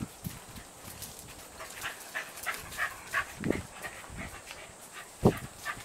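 Welsh corgi claws clicking on concrete as the dogs trot, with two short low woofs, the louder one near the end.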